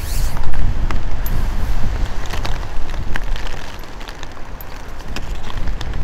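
Strong gusting wind buffeting the microphone in rain, with scattered ticks, over the distant low rumble of an Airbus A321-211's CFM56 jet engines as it waits to start its takeoff roll.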